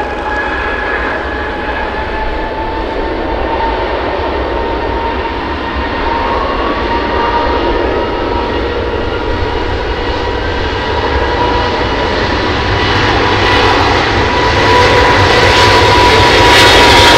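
Airbus A350-900's Rolls-Royce Trent XWB turbofans whining on the runway, the whine slowly rising in pitch and the engine noise growing steadily louder as the airliner powers up for takeoff.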